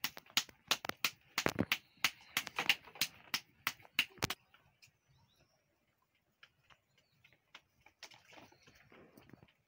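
Soft flatbread dough slapped back and forth between bare palms by hand: a quick run of sharp claps, about four or five a second. They stop about four seconds in, leaving only faint scattered taps.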